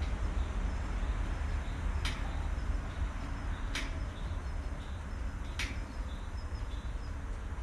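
Train at the end of its stop: a steady low rumble, with a sharp click about every two seconds and faint high chirps.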